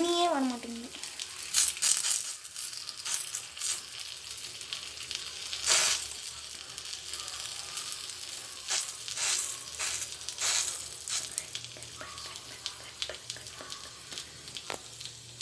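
Masala-coated raw plantain slices sizzling in oil on a hot dosa tawa, a steady hiss with occasional sharp crackles.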